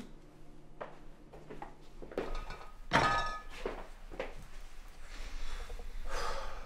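Glass liquor bottles being set down on a kitchen counter: a few light knocks and one loud clunk about three seconds in that rings briefly, with a rustling noise near the end.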